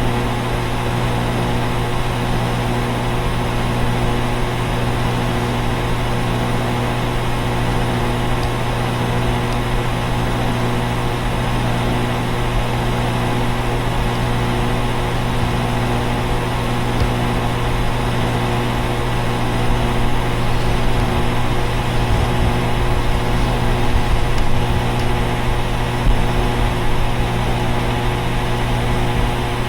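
Central air conditioner outdoor units running: a steady, unbroken hum with a strong low drone, a few steady higher tones and a fan hiss over it.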